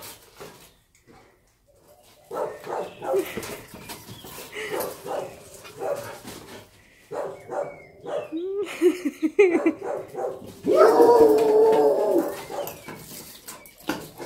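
A dog barking and whining in short bursts while it plays with a ball. About nine seconds in come a few yelps that bend up and down in pitch. They are followed by one long drawn-out cry, the loudest sound, lasting nearly two seconds.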